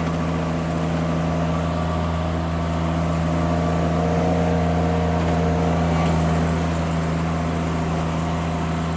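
Mini skid steer engine running steadily while the machine back-drags a mud pad with its bucket resting in float, growing slightly louder for a couple of seconds midway.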